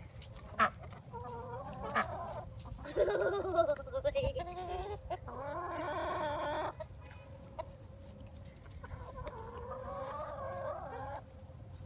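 Domestic hens clucking, with several drawn-out, wavering calls one after another, each a second or two long, and a few sharp clicks between them.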